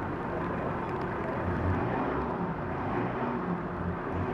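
A small truck's engine running steadily, a low even drone with outdoor street noise.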